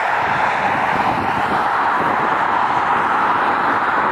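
Boeing 777 jet engines running as the airliner taxis and turns, a steady even noise with no rise or fall in level.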